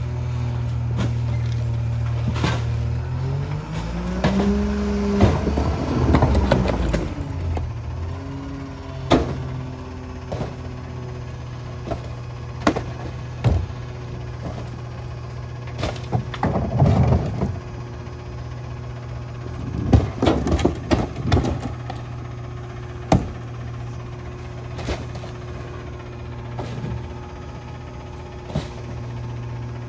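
Diesel engine of a McNeilus rear-loader garbage truck idling, revving up a few seconds in for the packer cycle and settling back to idle. Then repeated thuds and bangs as boxes, bags and a cart are dumped into the hopper.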